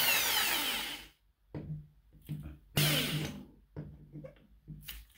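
Electric drill with a 10 mm bit starting a hole in a wet floor tile, run in short bursts: a first burst of about a second as it speeds up and slows, then several shorter trigger pulls and another strong burst about three seconds in.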